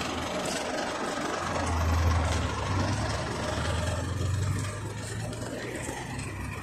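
Engine of a Yutong ZK6890HGQ city bus (Yuchai YC4G200-50) pulling away from a stop. Its low engine note swells and is loudest about two seconds in, then drops off as the bus moves away.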